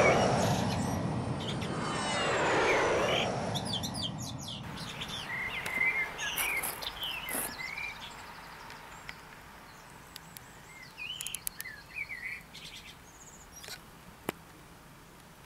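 Small birds chirping in short, scattered calls. In the first three seconds two louder, longer sweeping sounds come about two and a half seconds apart and die away about four seconds in.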